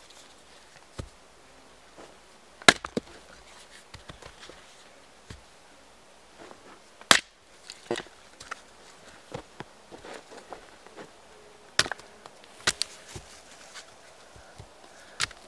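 Hatchet chopping and splitting a short log into firewood: four loud, sharp strikes spread out (about 3, 7, 12 and 13 seconds in), with lighter knocks and cracks of the wood between them.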